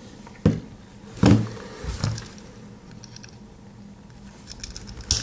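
Swiss Army knives being handled, their metal tools and red scales knocking and clicking: a few knocks in the first two seconds, then light clicks and one sharp click near the end.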